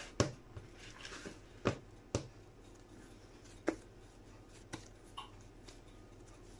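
Hands working a lump of soft, yeasted bread dough into a ball, faint, with about five short sharp slaps or taps as the dough is handled.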